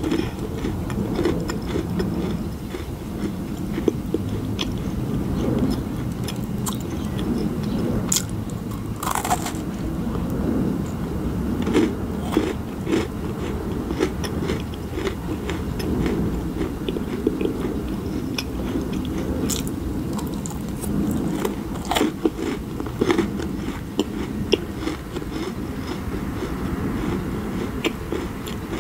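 Close-miked chewing of macarons, uneven and wet, with scattered sharp clicks.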